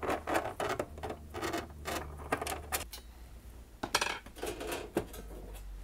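Irregular metallic clinks and clatter of small steel screws being dropped onto a tabletop pile and a screwdriver being set down, with the VCR's sheet-metal bottom cover being handled.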